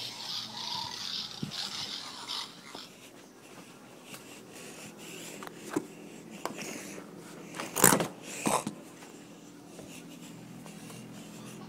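Rustling and handling noise from a phone being moved about, with scattered clicks and two loud knocks about two-thirds of the way through. A steady low hum sits underneath in the second half.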